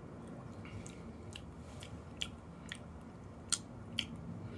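Faint wet mouth clicks and lip smacks, about half a dozen spread over a few seconds, from tasting a sip of beer.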